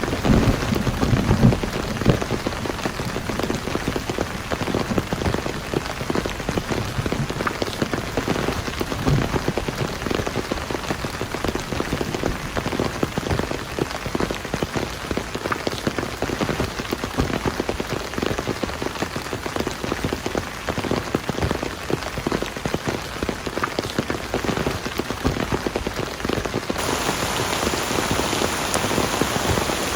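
Heavy rain falling, a dense steady patter of drops on a surface. A low rumble of thunder trails off in the first couple of seconds, and near the end the rain turns hissier.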